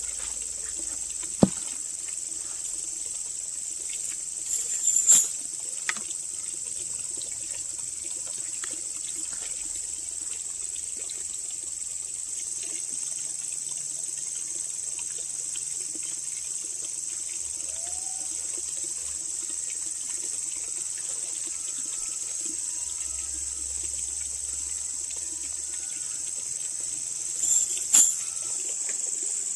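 Steady, high-pitched drone of an insect chorus, with a few sharp knocks about a second and a half in, around five seconds, and near the end.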